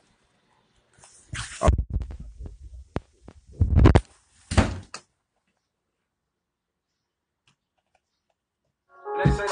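Phone being handled and moved, with irregular bumps and rubbing on its microphone for about four seconds. Then dead silence, and music starts near the end.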